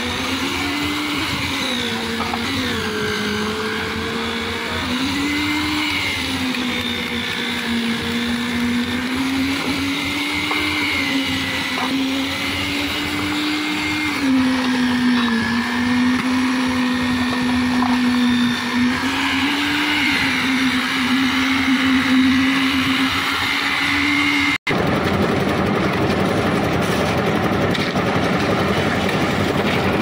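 Engine of a lift-type concrete mixer machine running, a steady drone whose pitch rises and dips slightly every few seconds. About 25 seconds in the sound cuts abruptly to a rougher, noisier machine sound without the clear pitch.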